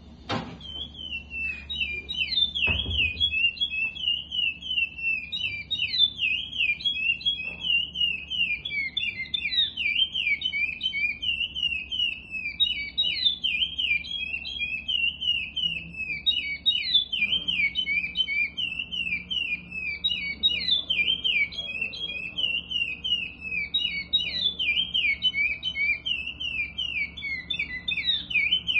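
Curió (chestnut-bellied seed finch) singing a continuous string of fast, clear whistled phrases in the classic Paracambi song type. The song starts right at the outset and runs on without a break. A couple of knocks sound in the first three seconds.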